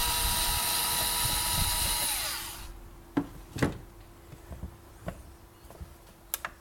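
Electric drill-driver running steadily for about two and a half seconds, then its motor winding down and stopping. A few light knocks and clicks of handling follow.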